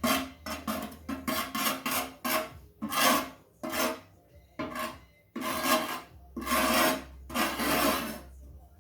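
Sandpaper rubbed by hand over the hardened super glue and baking soda on a plastic freezer drawer: a run of uneven scratchy strokes, quick and short at first, then a few longer strokes.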